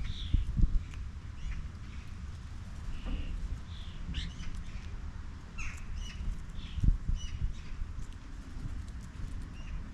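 Garden birds calling: short chirps and squawks at irregular intervals, several birds at once. A few low thumps stand out, near the start and about seven seconds in.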